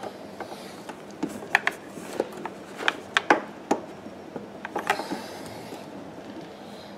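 Irregular small clicks and knocks of a hand working a rubber fuel hose onto the fuel selector valve fitting of a generator, with the hose and fingers tapping the plastic housing; most of the clicks fall between about one and five seconds in.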